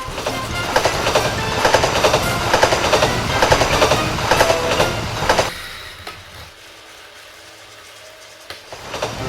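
Plarail battery-powered toy trains running on plastic track: a motor whir with a rhythmic clack about once a second from the track joints. About halfway through the sound drops away to a faint hum, then it comes back loud near the end.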